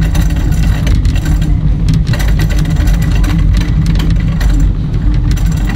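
Shopping cart rolling across the store floor with a loud, steady rattle and rumble from its wheels and wire frame, picked up through the cart by a camera mounted on it. The noisy cart is bad enough that she replaces it.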